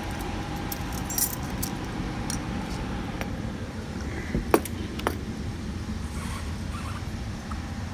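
Steady hum of air handler units running in a mechanical room, with light metallic jingling and a few sharp clicks, loudest about four and a half seconds in.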